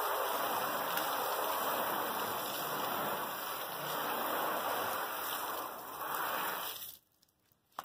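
Garden hose spray nozzle spraying water onto the aluminium skin of an Airstream trailer, a steady hiss of spray hitting and running off the metal that cuts off suddenly about seven seconds in. A single sharp click follows near the end.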